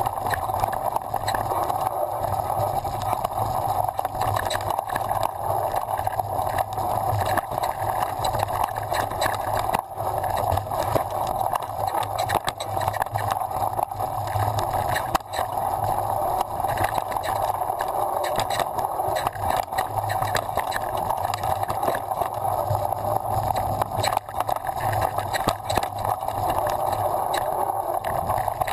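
Mountain bike descending a rough dirt trail: a steady rumble of tyres and wind with frequent knocks and rattles from bumps in the track.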